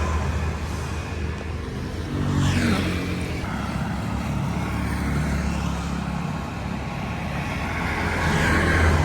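Road traffic passing by: a steady low engine hum, with vehicles swelling louder and sweeping in pitch as they pass, about two and a half seconds in and again near the end.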